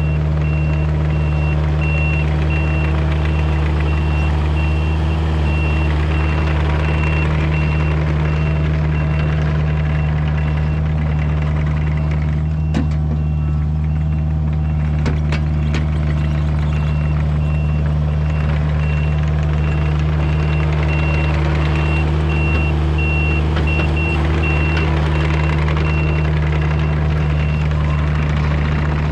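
Kubota U55-4 mini excavator's diesel engine running steadily under load, with its travel alarm beeping in a steady run of short beeps while the machine is moving. A few sharp clanks come from the machine a little before and after the middle.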